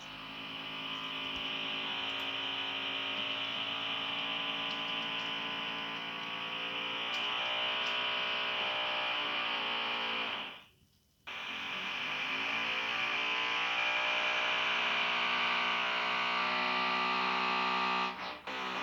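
Electric drill boring into a wall: the motor's buzzing whine runs steadily with its pitch wavering under load. It stops for under a second about ten seconds in, then runs again and cuts out with a brief stutter near the end.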